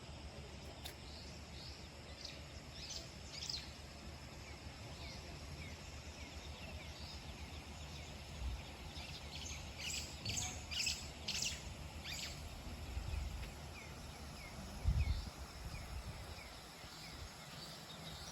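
Wild birds chirping in bursts of short, high calls, busiest about ten to twelve seconds in, over a faint low rumble. A single dull bump comes near the end.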